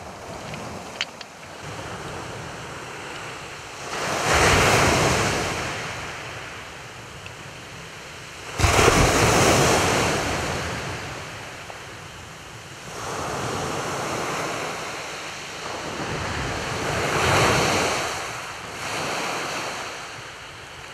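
Waves breaking on a shingle beach, surging in every four or five seconds and washing back, the loudest about nine seconds in.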